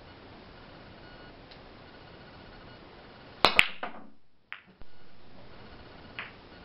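Billiard balls cracking together as a cue shot breaks the rack: two sharp cracks a moment apart about three and a half seconds in, then a short, fading clatter of balls colliding, and a few lighter clicks and a knock of balls meeting as they roll to a stop.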